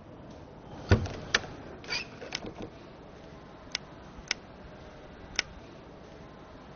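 A wind-up gramophone being handled: a series of separate sharp clicks and knocks over a steady faint hiss. The loudest is a knock with a low thump about a second in, then a short cluster of clicks, then three single clicks a second or so apart.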